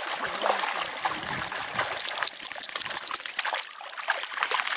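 Dogs and people wading and splashing through shallow pond water: irregular splashes and sloshing.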